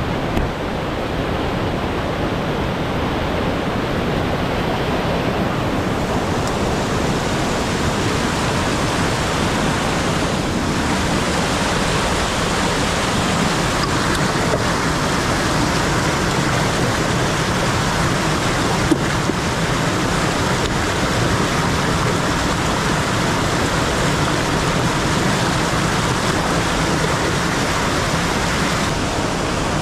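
Loud, steady rush of a fast mountain stream tumbling over rocks in white-water cascades.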